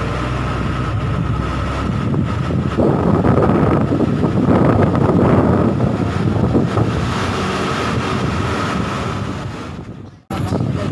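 A bus's engine running with road and wind noise heard from inside the moving bus as it climbs a hill road, rougher and louder for a few seconds in the middle. The sound fades and cuts out briefly about ten seconds in.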